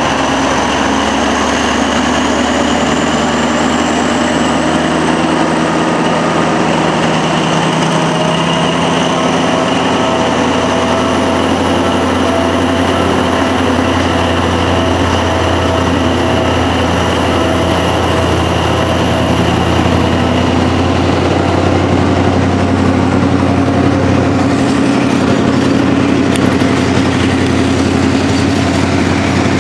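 Diesel-electric locomotive running steadily under load as it pulls a train of LPG tank wagons, the wagons rolling past close by. A low drone grows stronger about a quarter of the way through, and a thin high whine climbs slowly in pitch as the train gathers speed.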